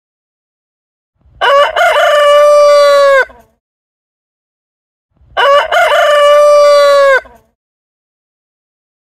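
A rooster crowing twice, about four seconds apart. Each crow has a choppy opening and then a long held final note.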